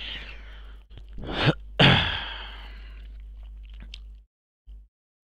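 A man sneezing: a quick catching inhale, then one loud, sudden sneeze about two seconds in that trails off. A steady low electrical hum sits under it.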